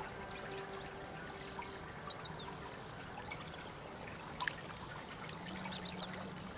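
River water flowing and trickling, with faint bird chirps and a single brief click about four and a half seconds in.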